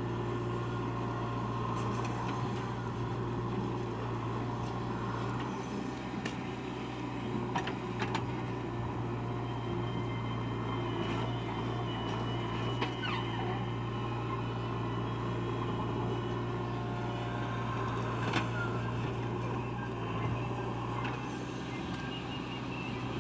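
Heavy diesel engine running steadily, with scattered sharp knocks and clanks.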